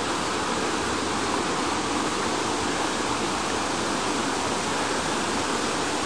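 Steady rush of water from Beaver Meadow Falls, an even, unbroken roar of falling water.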